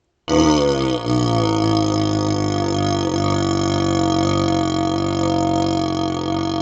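A single long, steady, low-pitched burp forced through a hollow vacuum cleaner extension tube. It starts about a quarter second in, dips briefly near one second, then holds an even pitch and level for several seconds, the tube giving it a resonant, horn-like tone.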